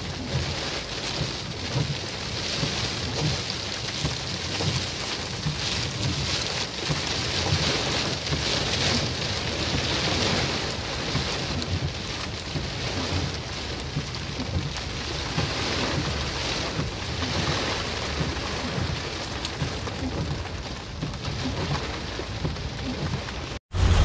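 Heavy rain falling on open desert ground, a steady hiss, with wind gusting against the microphone in low, uneven rumbles.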